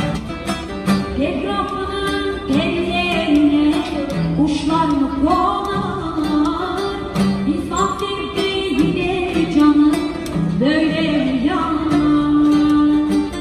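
A woman singing a Turkish folk song into a microphone, holding long notes that slide in pitch, over her own acoustic guitar accompaniment.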